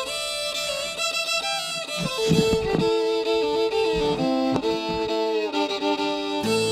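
Background music with a fiddle carrying the melody over sustained notes that step from pitch to pitch.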